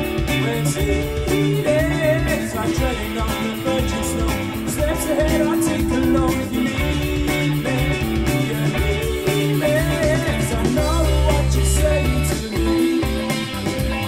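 Bang & Olufsen Beolit 20 portable Bluetooth speaker playing a song with a sung vocal, guitar and a steady beat. The bass gets fuller about eleven seconds in.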